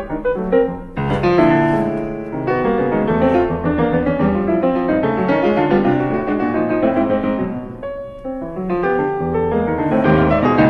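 Piano music, a continuous flow of notes with a brief dip in loudness near the end.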